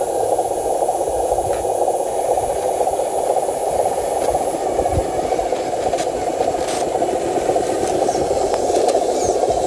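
A small motor whirring steadily, with a few faint clicks.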